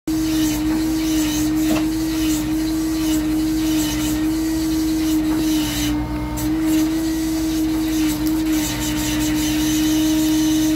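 A double-head drilling rig runs steadily while drilling an anchor borehole. It gives off a loud, constant tone at one pitch, dipping slightly now and then, over a dense rattle.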